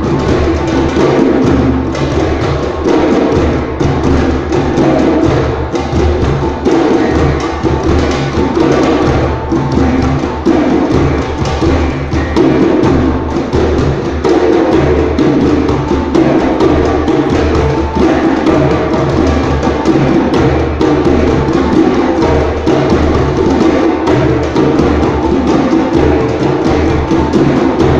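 A group of djembes played by hand together, a dense, continuous drumming rhythm with no break.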